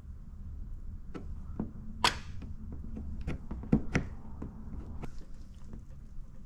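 Hand work on paint protection film on a truck fender: a few scattered sharp clicks and taps and one short swish about two seconds in, over a low steady hum.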